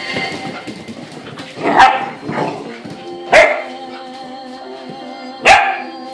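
Poodle puppies barking in play: three loud, sharp barks and a softer one, a second or two apart, over background music.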